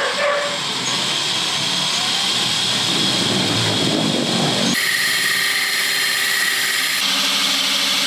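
Power drill spinning a diamond hole-saw bit, grinding a round hole through a tile: a steady whine over grinding noise. The tone changes abruptly about five seconds in and again about two seconds later.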